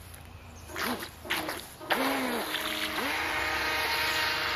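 Small RC jet boat starting up in the water: a few splashes about a second in, then its electric motor runs with the pitch dipping and rising several times as the throttle is worked, over the hiss of water.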